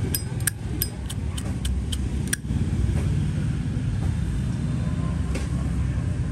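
Zippo lighter's lid clicking open and shut again and again, about three sharp metallic clicks a second with a bright ring, stopping about two and a half seconds in; its cam, which the seller rates about 8/10, a little weaker than normal. A steady low traffic rumble underneath.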